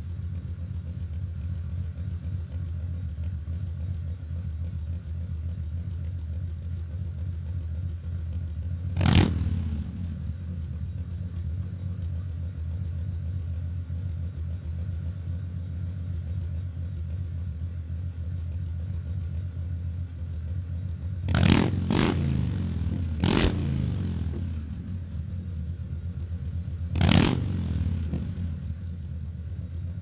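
Harley-Davidson V-twin motorcycle engine idling steadily, with five quick throttle blips that rise and drop back to idle: one about a third of the way in, three close together about two-thirds through, and one more near the end.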